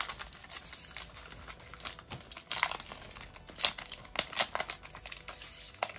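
Foil Pokémon booster pack wrapper being torn open and crinkled in the hands: irregular crackling rustles, with a few louder crinkles in the middle.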